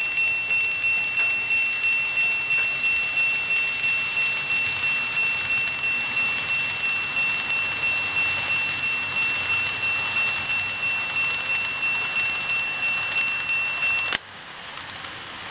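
Level-crossing warning bell of an N-gauge model railway diorama: a single high electronic tone ringing in even strokes about three times a second, which cuts off suddenly about 14 seconds in. A fainter steady hiss remains after it stops.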